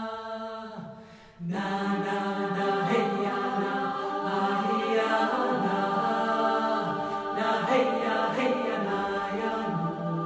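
Choir chanting wordless vocables as a music score. A held chord fades out about a second in, and the massed voices come back fuller about a second and a half in.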